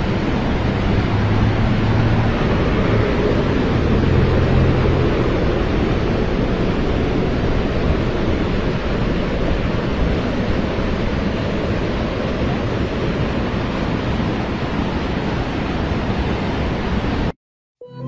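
Muddy floodwater and mudflow rushing down a street in a steady, loud torrent. It cuts off suddenly near the end.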